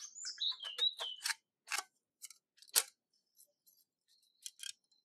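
Scissors snipping through thin aluminium sheet cut from a drink can: a run of sharp, irregular clicks, one louder than the rest about three seconds in. A bird sings a few short falling notes in the first second.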